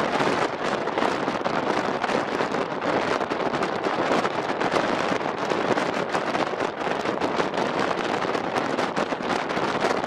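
Strong wind rushing in through an open balcony door, a steady dense rush with constant buffeting on the microphone.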